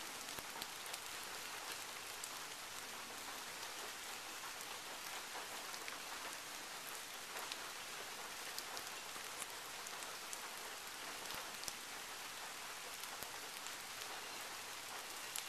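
Steady rain falling on a wet sidewalk, lawns and trees: an even hiss dotted with the sharp ticks of single drops.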